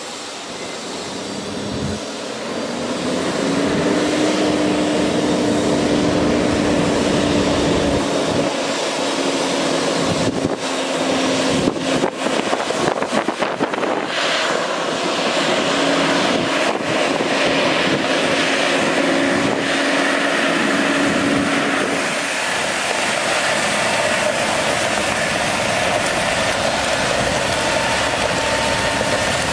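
Kenworth water truck's diesel engine running as the truck drives, with the hiss of water spraying from its front spray bar. The engine note rises about three seconds in, and a few short crackles come through in the middle.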